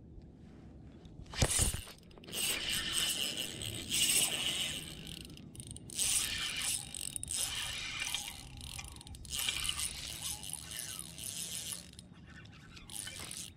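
Rustling and scraping handling noise right at the microphone as an angler casts and reels a spinning rod, with a sharp knock about a second and a half in.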